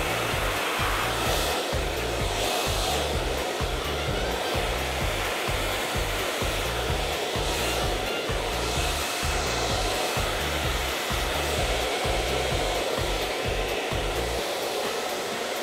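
Hand-held hair dryer blowing steadily, with a low, evenly repeating pulse underneath that stops near the end.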